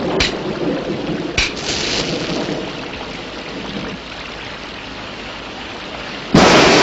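Steady rushing noise of heavy rain, with two sharp cracks in the first second and a half, growing quieter; a louder rush cuts in suddenly near the end.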